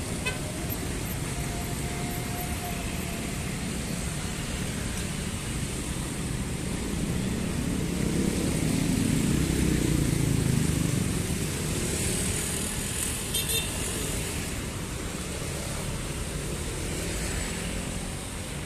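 Road traffic of motorcycles and cars passing over a level crossing, a steady run of engines and tyres. It grows louder about halfway through as vehicles pass close.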